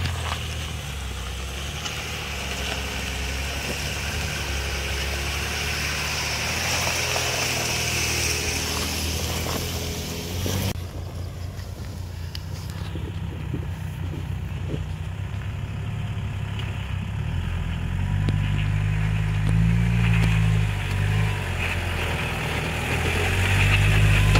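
Off-road 4x4 vehicles' engines running at low revs as they crawl down a rutted dirt track. One engine grows louder over the last few seconds as the vehicle comes close.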